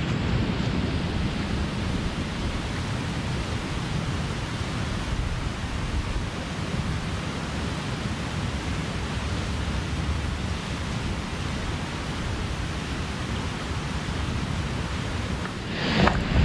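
Steady wind blowing, with low rumbling from the wind on the microphone. Near the end, rustling and clicking as the strap of a canvas rucksack is unbuckled.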